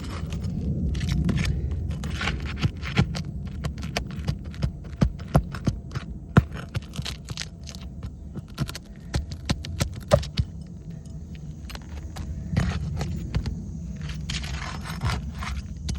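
Asphalt composition shingles being pried up and unsealed: irregular sharp clicks, crackles and short scrapes as the sealant strips tear loose, over a steady low rumble.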